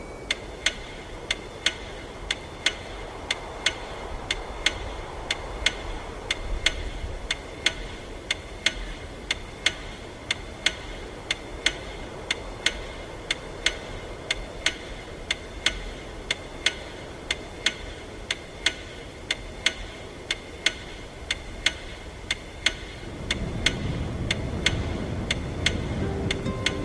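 Clock ticking steadily, about one and a half sharp ticks a second, over a low background noise. A deeper rumbling noise grows louder near the end.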